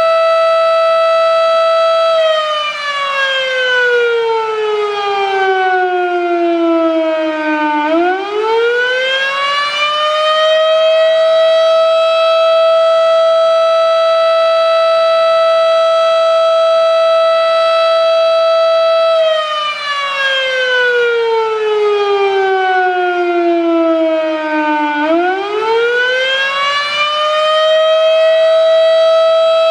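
Federal Signal Model 7 outdoor warning siren sounding the attack signal in a slow wail. It holds its full pitch, then winds down low over several seconds and winds back up to full pitch. It does this twice.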